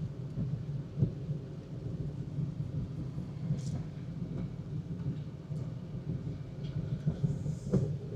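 Steady low rumble inside a car driving on a wet road in rain, with a couple of light knocks and two brief soft swishes.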